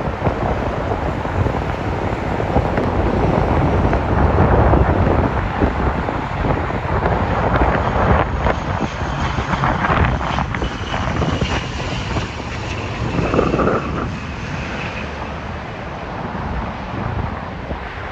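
ATR 72-600 twin turboprop airliner on final approach, its engines and propellers sounding under heavy wind buffeting on the microphone. A thin high whine comes through for a few seconds in the middle.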